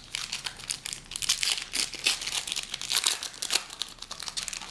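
Foil hockey-card pack wrapper crinkling as it is torn open and crumpled by hand: a dense run of irregular crackles that dies down near the end.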